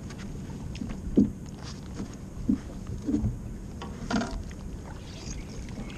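Wind and water on the open deck of a bass boat, under a steady low hum. A few short knocks on the boat; the loudest comes about a second in, another about two and a half seconds in.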